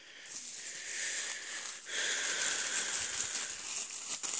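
Thin plastic carry bags rustling and crinkling as they are handled by hand, a continuous rustle that builds over the first second.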